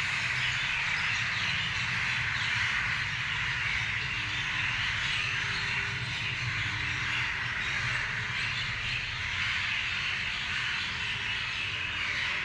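Many birds chirping together in a dense, unbroken chorus, with a steady low hum underneath.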